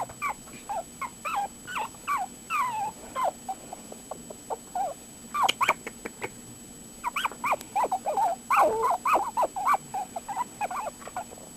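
Young puppies crying with many short, high whines, some sliding down in pitch; a busy run at the start, a lull around four seconds in, then a dense stretch from about seven seconds.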